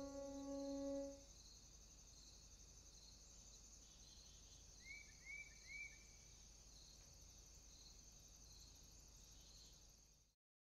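Faint outdoor ambience of crickets chirping steadily, with three quick bird chirps about five seconds in. The last piano notes of the background music die away in the first second, and the ambience cuts off abruptly just before the end.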